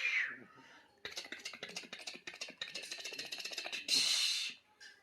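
A baby's high vocal sound gliding down in pitch at the start. Then about three seconds of rapid, irregular clicking and rustling, ending in a loud breathy burst about four seconds in.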